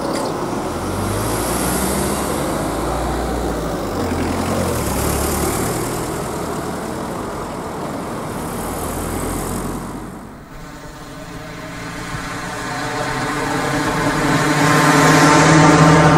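Cars driving over a railway level crossing, with engine and tyre noise swelling as they pass. About ten seconds in this gives way abruptly to a steady hum of many even tones that grows louder toward the end.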